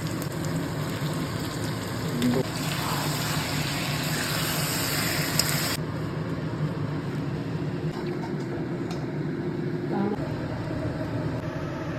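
Oil sizzling as food fries in a pan, a steady hiss. About six seconds in, the high part of the hiss drops away suddenly, leaving a lower, steady noise.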